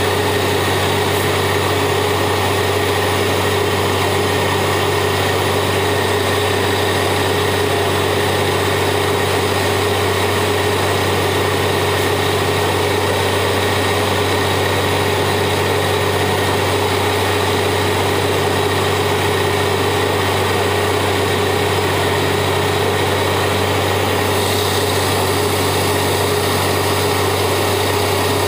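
Borewell drilling rig's engine running steadily under load, a constant loud drone with a deep hum and a steady higher tone over it.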